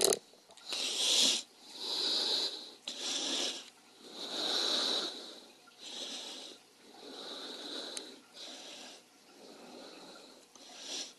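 A person breathing heavily close to the microphone: a run of loud in-and-out breaths, roughly one every second. A sharp click of handling noise at the very start.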